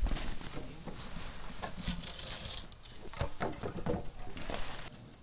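A few sharp knocks and taps over low background noise, with four of them close together in under a second near the middle.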